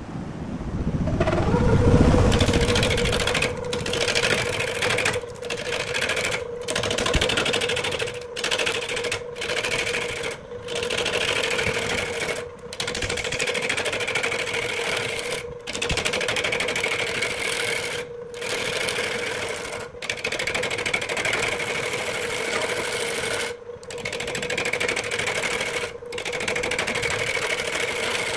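A wood lathe starts up about a second in and its motor settles to a steady hum. A gouge then cuts into the spinning knobbly log with a rough scraping hiss that breaks off briefly every second or two.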